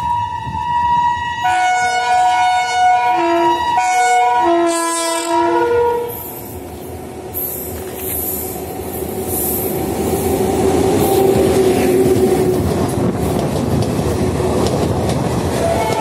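WAP-7 electric locomotive's air horn honking madly: a held blast, then a rapid run of short blasts switching between pitches, for about the first six seconds. Then comes the rumble and wheel clatter of the express train, growing louder as it approaches and runs through at speed.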